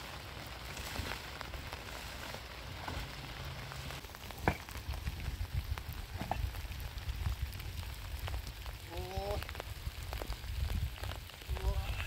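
Steady rain falling on a tarp roof and stony ground, over a low rumble. A single sharp knock comes about four and a half seconds in, and a couple of short pitched calls sound near the end.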